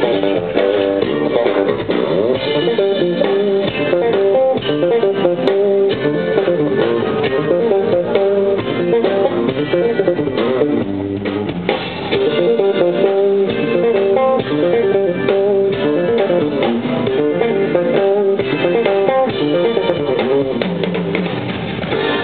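Electric bass guitar played live with a drum kit, a dense stream of quickly changing notes.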